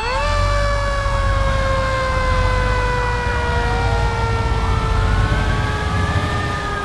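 Fire engine siren sound effect: a wail that swoops up at the start and then falls slowly, with a second wail rising and falling in the second half, over a steady low rumble.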